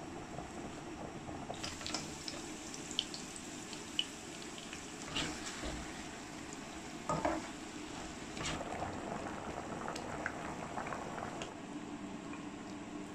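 Food cooking on the stove with a steady hiss, broken by a few light clicks and knocks of a utensil against the cookware.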